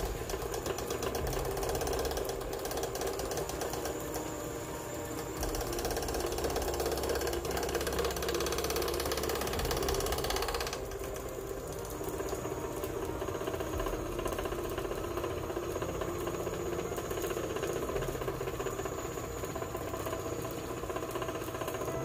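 Motorised line winder running, spooling braided fishing line off a bulk spool onto a big-game reel with a steady mechanical whirr and rattle. The higher hiss drops away abruptly about eleven seconds in.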